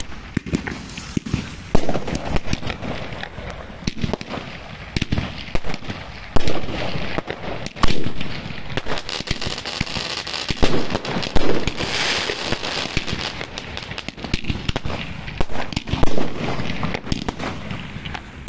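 Funke Kometenbomben 2 38 mm bomb tube (Goldcracker White) firing a series of shots: several loud bangs a few seconds apart, with dense crackling from the gold crackling stars in between.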